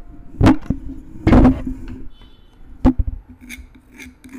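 Three sharp knocks on a tabletop as the small canvas board and metal palette knife are handled, the middle one a longer scrape. Then a run of quieter strokes as the palette knife scrapes paint across the canvas.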